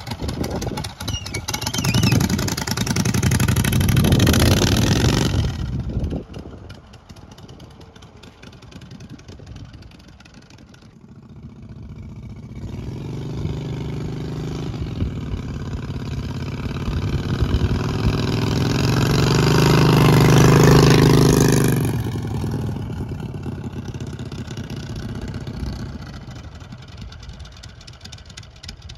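570cc V-twin engine on a homemade motorized bicycle running as the bike is ridden past. It is loud at first and fades away, then builds to its loudest about three quarters of the way through and fades again.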